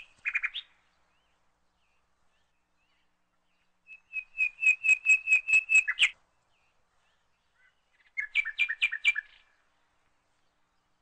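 A small bird chirping: a brief burst of chirps at the start, then a quick run of about ten sharp, evenly spaced chirps, and a shorter run of about six near the end.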